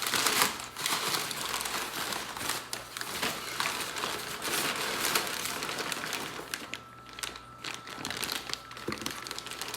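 Packaging crinkling and rustling as parts are lifted out of a shipping box, with scattered small clicks and knocks; it thins out in the last few seconds, leaving a faint steady high tone.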